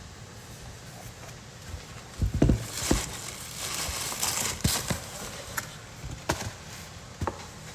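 A shoe box and its paper wrapping being handled: a series of sharp knocks and bumps, loudest a little over two seconds in, with some crinkling between them.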